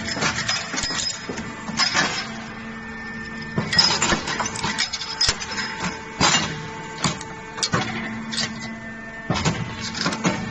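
Automatic chain link forming and butt welding machine running: repeated sharp metallic clacks and clicks from the forming tooling, coming in irregular clusters about once a second, over a steady machine hum.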